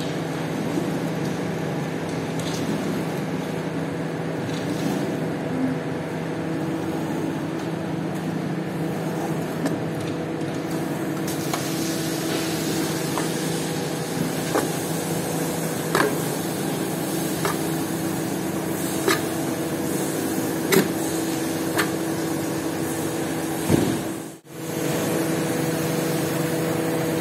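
Steady hum of an electric carpet-washing machine, under the wet swish of a long-handled brush scrubbing a foam-soaked rug, with a few sharp knocks in the second half. The sound drops out for a moment near the end.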